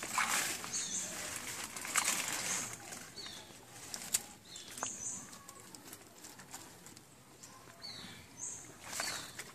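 Rustling of leaves and wet scraping in a shallow stream bed as a hand digs among the plants for crabs, busiest in the first couple of seconds, with a few sharp clicks. A bird repeats a short high call several times in the background.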